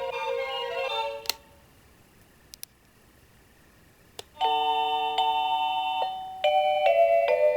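Seiko NR435P quartz melody alarm clock playing an electronic chime melody that stops with a sharp click about a second in. After about three seconds of quiet broken by a few faint clicks, the next melody starts, its first notes held at about four and a half seconds and moving to a new chord about two seconds later.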